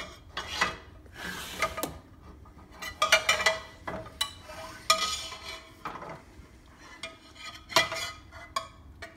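Metal ladle scraping and clinking against a stainless-steel skillet as thick gravy filling is scooped out, a string of short strokes with a metallic ring.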